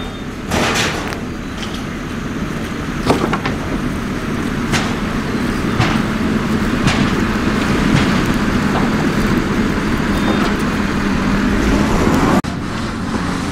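An engine running steadily and slowly getting louder, with a few short knocks scattered through it; the sound drops suddenly near the end.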